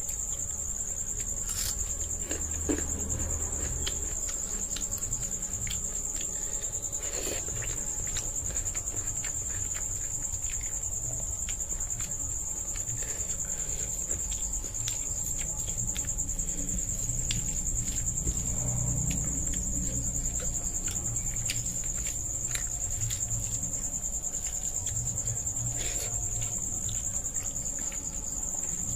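Eating rice by hand: fingers squishing and scooping rice on a plate, with chewing and lip smacks heard as many small clicks. Under it runs a continuous high-pitched cricket trill.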